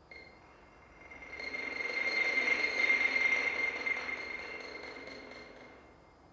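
Quiet closing passage of a mandolin and xylophone duo. A high ringing tone sets in suddenly and holds, while a soft swell of sound rises to a peak about halfway through and fades away.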